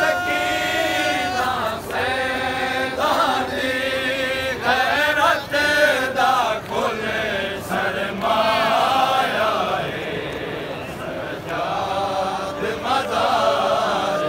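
Men's voices chanting a noha, a Shia mourning lament, in sung phrases with long held notes.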